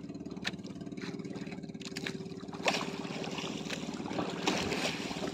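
Small outrigger fishing boat's engine running steadily, with a few short sharp clicks on top, about half a second, two and a half and four and a half seconds in.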